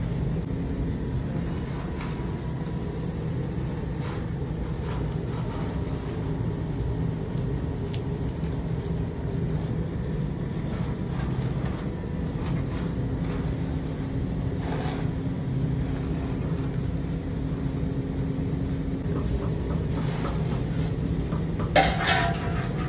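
Steady low rumble from the furnace under pans of boiling sugar syrup, with a few light clinks of a metal ladle and one sharper clank near the end.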